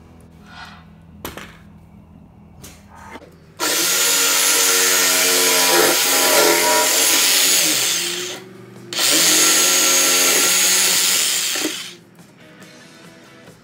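Jigsaw cutting through a wooden backboard in two runs of several seconds each, starting about three and a half seconds in and separated by a brief pause. Its motor pitch wavers as the blade is loaded.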